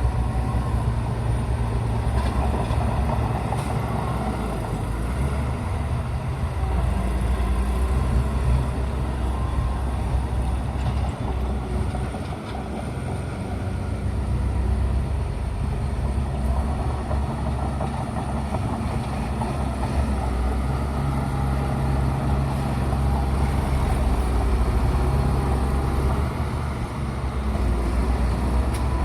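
Bulldozer's diesel engine running steadily with a low rumble, easing off briefly about twelve seconds in before picking up again.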